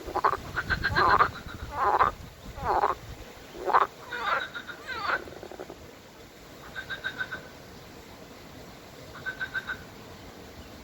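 Frogs croaking: about six loud, drawn-out croaks in the first five seconds, then softer trills of quick clicks about every two to three seconds.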